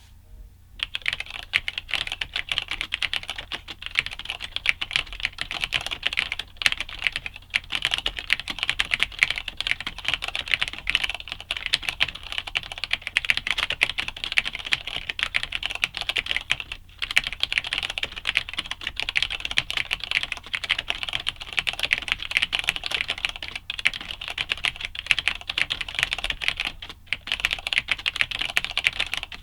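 Cherry G80-3000 keyboard with Cherry MX Black linear switches, a build without a metal plate, being typed on fast and continuously. The keystrokes start about a second in and come in a dense stream with a few short pauses.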